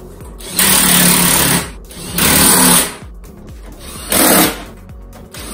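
Cordless drill running a socket in three short bursts, about a second, half a second and half a second long, spinning the nuts onto a kart wheel hub to fit the wheel.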